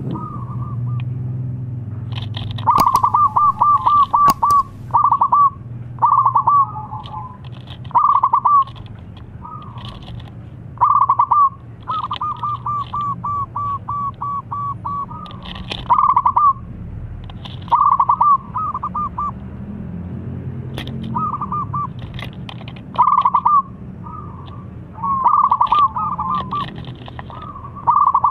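Zebra dove (perkutut) cooing: repeated bursts of rapid staccato notes, some short and some running on for a second or more, every second or two. A low steady hum runs beneath.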